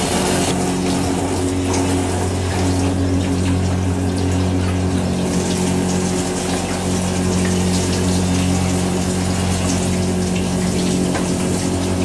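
1961 Electrolux Dishmaid tabletop dishwasher running its wash cycle. Its small motor hums steadily while the motor-driven pumps spray and splash hot water over the dishes on the turning carousel.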